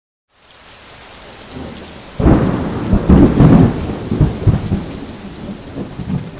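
Steady rain fading in, then a sudden roll of thunder about two seconds in that rumbles in several surges for about three seconds before easing back under the rain.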